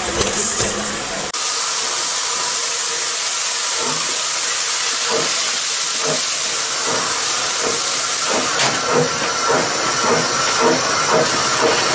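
Steady hiss of steam from a 1919 Nydqvist & Holm steam locomotive, heard from its cab. From about four seconds in, regular exhaust beats join it and come quicker and quicker as the locomotive gets under way.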